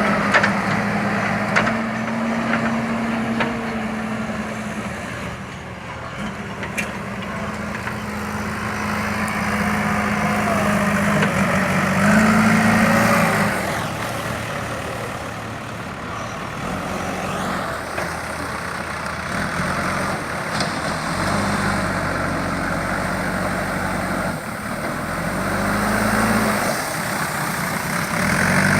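JCB 3DX backhoe loader's four-cylinder diesel engine working under load. It revs up and drops back several times as the machine digs and loads, with a few faint knocks.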